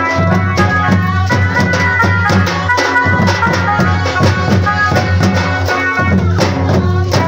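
Santali folk dance music: drums and rattling percussion keep a steady beat under a high, held melody line.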